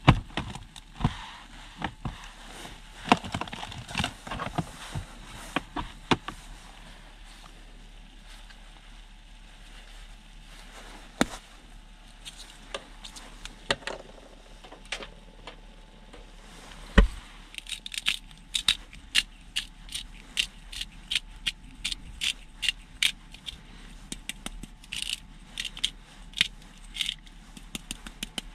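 Jars and small containers clicking and knocking as they are handled, then a quick run of dry clicks from a spice grinder being turned over a pan of rice.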